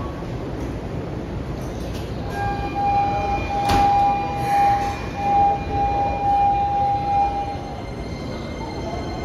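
Station platform noise around a stopped Keikyu New 1000 series electric train. A steady electronic tone sounds in short stretches for about five and a half seconds, starting about two seconds in: the departure warning before the doors close. A single sharp knock comes about a second after the tone starts.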